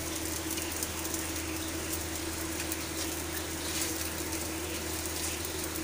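Dosa sizzling steadily on a hot tawa, with faint crackles and a steady low hum underneath.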